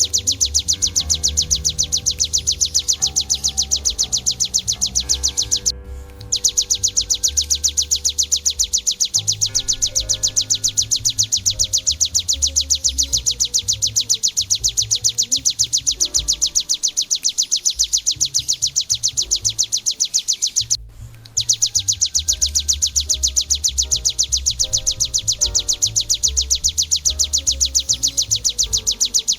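Ciblek (prinia) song: a fast, evenly repeated string of high notes, broken off twice for a moment, over background music with a bass beat.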